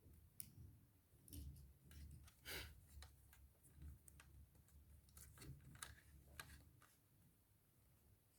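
Faint scattered clicks and small handling noises, a dozen or so short ticks with one louder click midway, over a low rumble.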